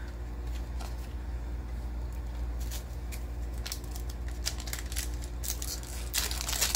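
A foil trading-card booster pack being handled and pulled open at its seam: scattered light crinkles and clicks, busier in the second half, over a steady low hum.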